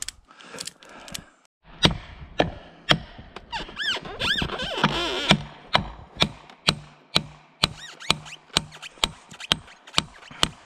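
Sharp knocks of a hand tool striking a tree trunk, chipping away wood to free a pinched chainsaw bar, coming regularly about two a second in the second half. A brief squeal about four seconds in.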